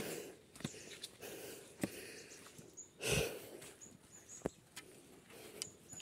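Handling noise from a swinging handheld camera and footsteps on a forest trail: scattered clicks and rustles, with a louder breathy burst about three seconds in.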